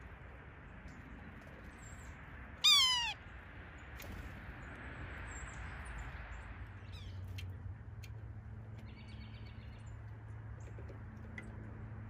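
Yellow-bellied sapsucker giving one loud, downward-slurred mewing call about three seconds in. Fainter small-bird chips and a short run of quick notes follow later.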